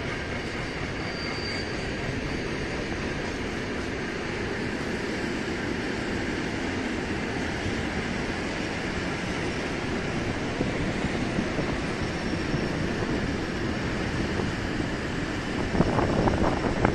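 Freight train of covered hopper wagons rolling past at a steady speed, a continuous rumble of wheels on rail that grows louder near the end.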